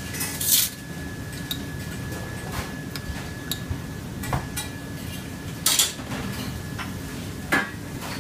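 Metal utensils clinking and tapping against ceramic plates and a steel bowl while dishes are plated, with a few sharper clinks about half a second in, near six seconds and about seven and a half seconds. Underneath runs a steady low hum with a faint high steady whine.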